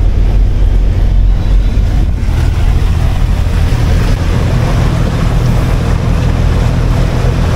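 Cruise boat's engine running steadily under way, a low even drone. About two seconds in, a rush of wind and water joins it as the open deck is reached.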